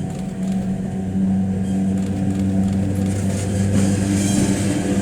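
Model train running on the layout: a steady electric motor hum with wheels rolling on the track, growing louder as the hiss of the running rises through the second half.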